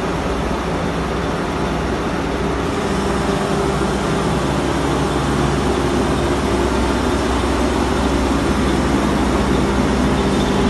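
A 60 hp screw air compressor and a 20 hp piston booster compressor running together: a steady machine hum with a hiss, growing a little louder after a few seconds.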